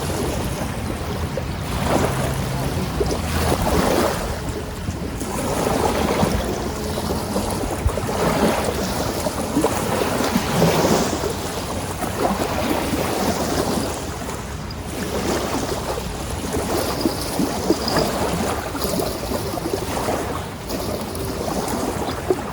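Strong wind buffeting the microphone in gusts, a loud rushing noise that swells and fades every second or two.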